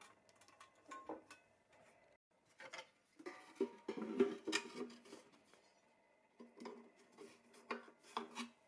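Handling noise of small metal parts: light clicks, knocks and rubbing with brief ringing. It is busiest about three to five seconds in and again near the end.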